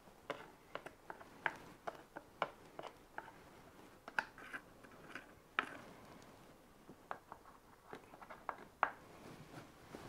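Scattered light clicks and taps of a plastic washing-machine soap dispenser box being turned and handled while sealant is applied to its rim.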